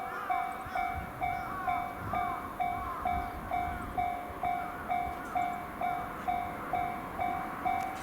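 Japanese railway level-crossing warning bell ringing in an even rhythm, a little over two strokes a second, signalling that a train is approaching.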